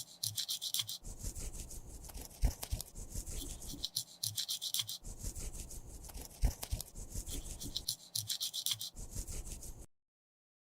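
Cosmetic product being scraped and rubbed with a tool in many short scratchy strokes, with small clicks among them; it cuts off suddenly near the end.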